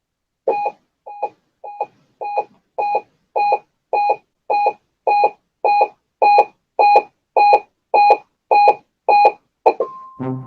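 Electronic alarm beeping: about seventeen short beeps, a little under two a second, growing louder over the first few, with a steady tone starting just before the end.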